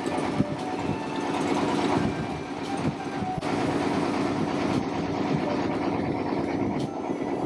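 Small wooden river boat's engine running steadily, a dense mechanical drone with a rattling chug, with a brief break in the sound about three and a half seconds in.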